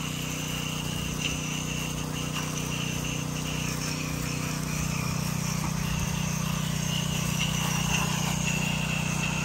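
A 2.4-gallon-a-minute pressure washer running steadily with a low hum, while a rinse stream sprays from an extension wand onto a front door and its glass.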